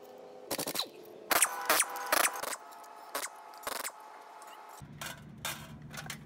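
Impact wrench fired in several short bursts, undoing the bolts that hold the worn clutch and dual-mass flywheel to the crankshaft, with loose bolts clinking. A low steady hum comes in about five seconds in.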